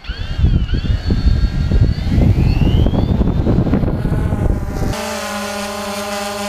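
Quadcopter lifting off from gravel: a rush of propeller wash with a whine from its motors that dips and then rises as it climbs. About five seconds in, the sound switches abruptly to a steady hum of several held tones.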